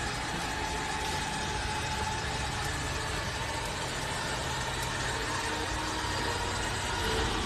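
A vehicle engine running steadily, a low even hum with no clear change in pitch or load.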